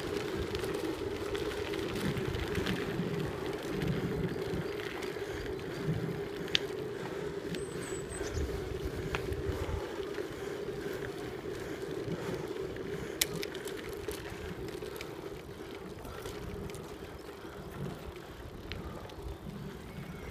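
Wheels rolling over a gravel forest track under a moving camera, with a steady hum throughout, an uneven low rumble and a few sharp clicks.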